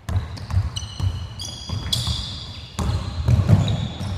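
A basketball is dribbled on a hardwood gym floor in a quick, irregular run of bounces. Sneakers give short, high squeaks on the floor as the players cut.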